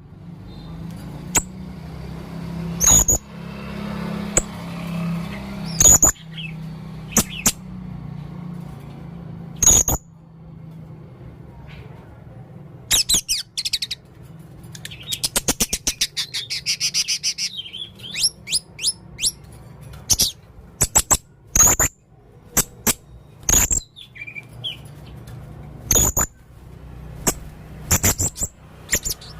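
Male blue-crowned hanging parrot (serindit) calling: very short, sharp, high-pitched chirps at irregular intervals, with a quick rattling trill about halfway through.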